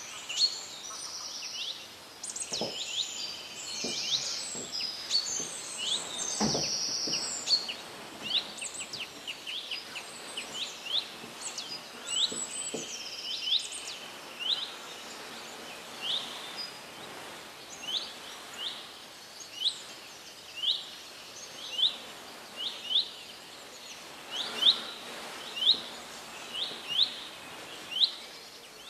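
Birdsong over a steady outdoor hiss: several birds singing and chirping at first, then one bird repeating a short, sharp chirp about once a second.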